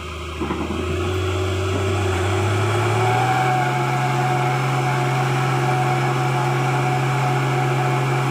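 Mitsubishi Fuso truck's diesel engine running hard under load, its pitch rising about three seconds in and then holding steady. The truck is straining on a climb it is not strong enough to make.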